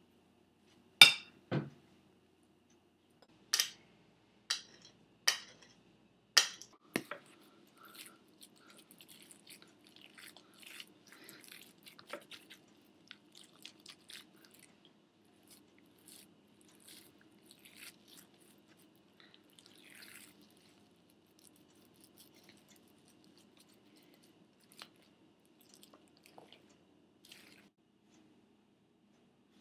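A knife clacks sharply against a plate about seven times in the first seven seconds as mashed potato is scooped. After that comes soft, wet squishing and crackling as hands knead and pile the heap of mashed potatoes, fading to a few scattered squelches.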